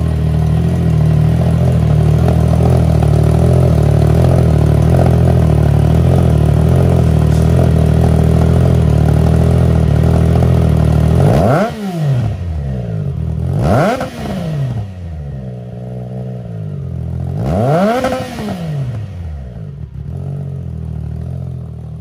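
Harley-Davidson FXDR 114's Milwaukee-Eight V-twin running through a newly replaced exhaust pipe. It holds a loud, steady drone for about half the time, then drops off and gives three throttle blips, each rising and falling in pitch.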